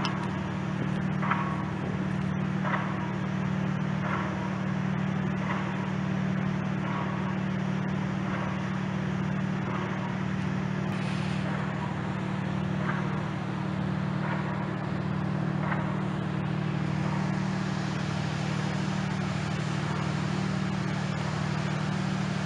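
Steady low engine hum without a break, with a faint tick repeating about every second and a half through the first part.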